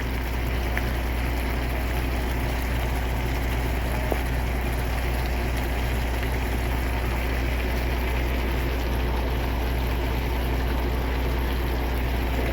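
Semi-truck's diesel engine idling, a steady low drone heard inside the cab, with a faint sizzle of food cooking in a pan.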